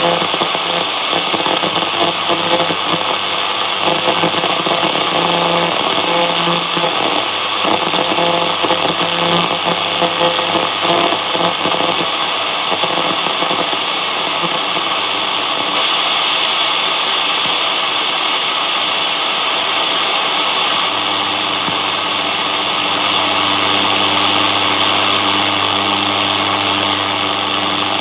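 Radio hiss and static from a National Panasonic GX300 RF-888JB receiver with no station clearly tuned. Faint fragments of a signal flicker under it for the first half, and a steady low hum comes in about three-quarters of the way through.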